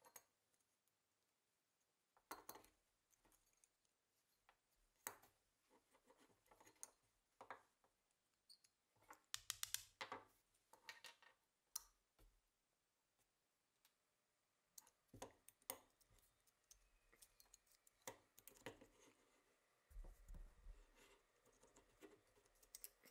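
Faint, irregular metallic clicks and small scrapes of the steel action parts of a Colt Lightning rifle being handled and worked apart by hand, busiest about nine to ten seconds in.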